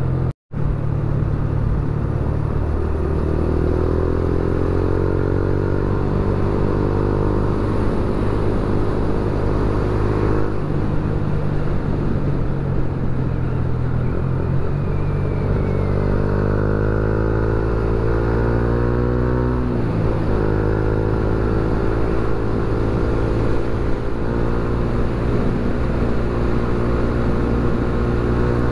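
Motorcycle engine running on the move with wind rushing over the onboard microphone. The engine pitch climbs twice as it accelerates and drops briefly about two-thirds of the way through. The sound cuts out for a split second just after the start.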